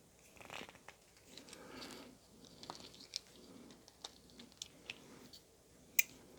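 Faint handling noises from working on a small folding knife: soft rustling and scattered light clicks of metal parts and tools. A sharper click comes near the end.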